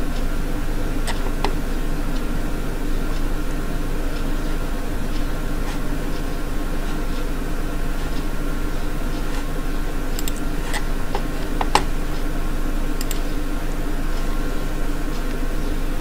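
Steady hum and hiss of a desk microphone's room noise, with a low mains hum, broken by a handful of short sharp computer mouse clicks, a few close together in the second half.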